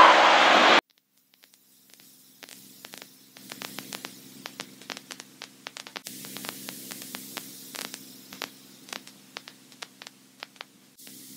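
Aircraft radio and intercom static: a loud burst of hiss in the first second, then a low steady hum with frequent crackles and clicks.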